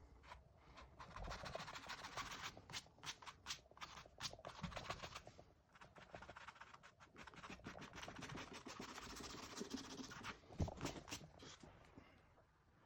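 Bristle brush scrubbing oil paint onto canvas in quick, scratchy strokes, in two stretches of a few seconds each.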